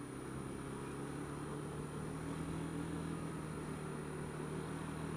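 Honda Dio scooter's engine running at a steady, unchanging pitch while riding slowly in traffic.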